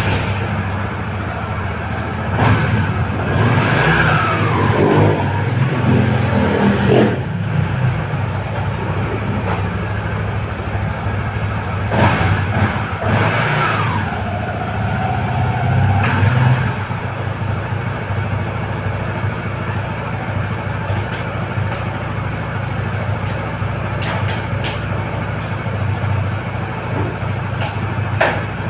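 A Honda CBR150R's single-cylinder engine running. It is revved up and let fall back twice in the first half, then settles to a steady idle. One sharp click comes near the end.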